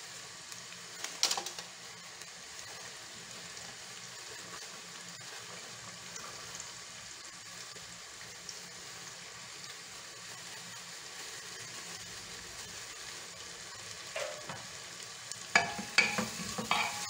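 Diced onion and green bell pepper sizzling steadily in hot olive oil in a pressure cooker pan, being lightly fried (refogado). A few sharp clicks and knocks come about a second in and again near the end as the pan is stirred.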